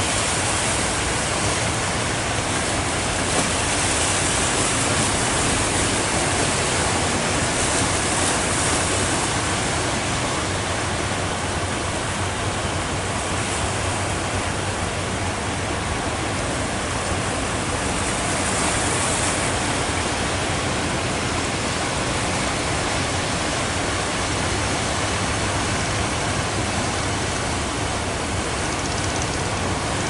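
Rough surf breaking on the shore, a steady rushing noise that swells a little at times.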